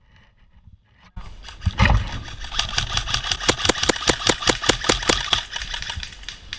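Airsoft guns firing, a rapid string of shots at several per second that begins suddenly about a second in and carries on until near the end.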